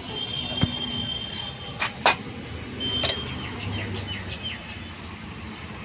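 Hammer knocking on metal while a truck gearbox is assembled: four sharp knocks, two of them close together about two seconds in, some with a brief metallic ring. A steady low hum runs underneath.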